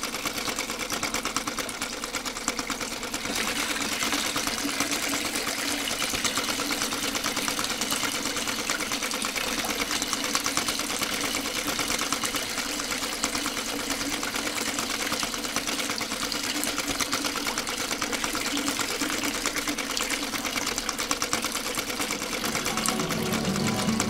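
Small electric motor in a toy engine model running steadily, belt-driving a miniature water pump, with a fast, even, buzzing rattle.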